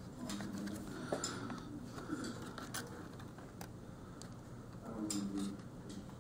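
Faint clicks and rustling of fingers handling and seating small plastic cable connectors on a laptop motherboard inside its plastic case, with a few short separate clicks.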